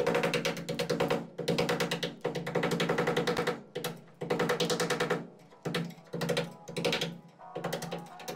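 A mallet striking the handle of a steel putty knife that is driven into body filler on a car fender, in quick runs of taps about a second long with short pauses between, chipping the filler away.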